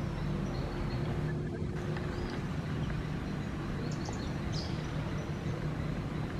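Steady low mechanical drone, like a motor running, with a few short, faint high-pitched chirps about four seconds in.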